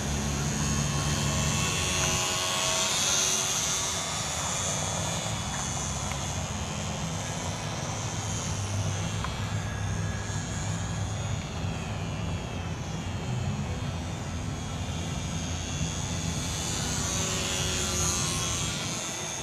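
Electric RC model airplane's motor and propeller whining in flight overhead. The high whine swells and fades as the plane passes, with its pitch sweeping down and up in the middle, and it is loudest a couple of seconds in and again near the end.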